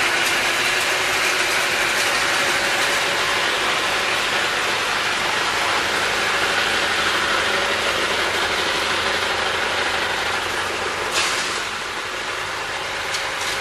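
Palm nut cracking machine running, with a steady, dense rattle of nuts being cracked inside it. It eases off a little near the end.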